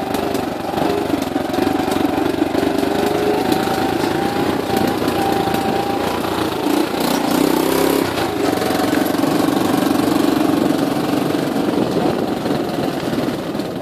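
Motorbike engine running as it rides along a rough dirt footpath. Its note rises briefly about seven seconds in, then drops back.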